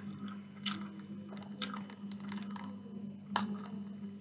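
Close-miked mukbang sounds: chewing with the crinkle of a small food sachet being handled and torn open, heard as a run of short crackles and clicks with a sharp snap about three and a half seconds in. A steady low electrical hum lies under it all.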